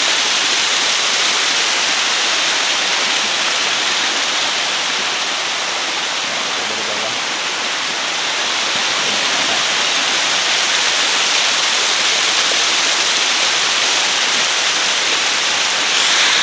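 Small waterfall pouring down a stepped rock face, a steady rushing of water, slightly quieter midway.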